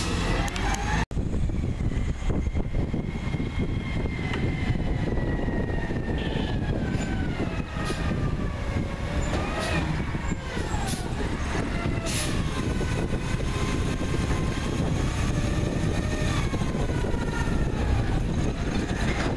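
CNG-powered Peterbilt 320 garbage truck running as it drives up, with a whine that glides up and down in pitch over the engine noise. A few sharp clicks or knocks come around the middle, and the sound cuts out for an instant about a second in.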